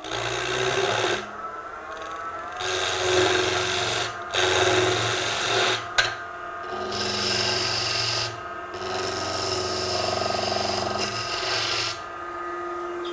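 A gouge cutting into a square wooden spindle blank spinning on a Coronet Herald wood lathe, knocking its corners down towards round. The rasping cut comes in passes of one to two seconds with short breaks, over the lathe's steady motor whine. The cutting stops about twelve seconds in, and the lathe runs on alone.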